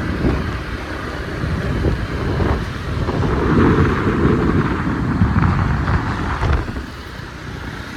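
Riding a motor scooter: wind rushing over the microphone with the motor and road noise underneath, swelling louder in the middle.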